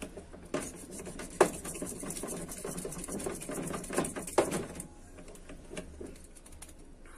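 Wire balloon whisk beating thick cake batter by hand in a plastic bowl: a fast, dense run of clicking strokes with a few sharper knocks, easing off about five seconds in.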